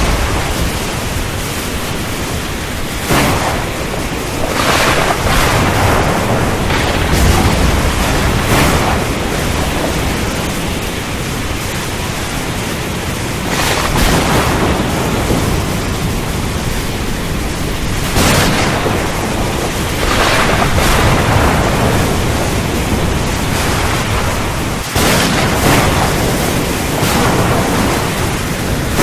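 Thunderstorm: a steady, dense roar of rain, broken every few seconds by sudden cracks of thunder, some with low rumbling underneath.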